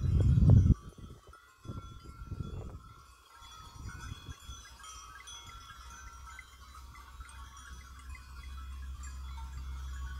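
Bells on a herd of goats clinking and tinkling, many small scattered rings, as the goats walk across the road. A brief loud low rumble at the start comes from the phone being handled.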